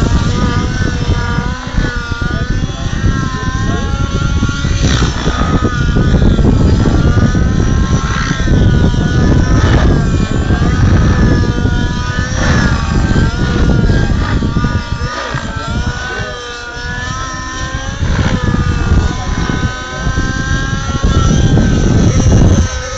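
Radio-controlled helicopter in 3D aerobatic flight, its engine and rotor whine swooping up and down in pitch over and over, with a heavy low rumble underneath.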